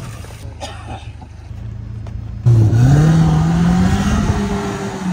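Maruti Gypsy off-roader's engine running low and steady, then about two and a half seconds in it suddenly gets much louder and revs up, its pitch climbing steadily as the vehicle accelerates.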